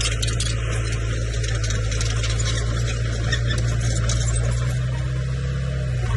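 Komatsu bulldozer's diesel engine running steadily with a constant low drone, along with the general noise of the machine at work.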